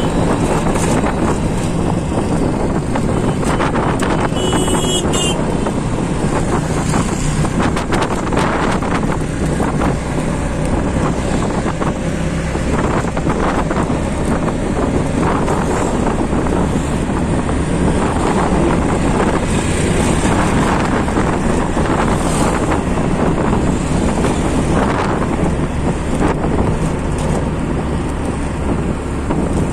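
Auto-rickshaw engine running steadily while the vehicle drives along, heard from inside its open-sided cabin with road noise and wind buffeting the microphone.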